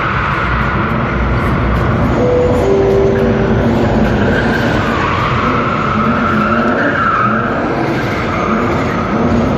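Drift car sliding with a long, continuous tyre squeal over its engine running at high revs.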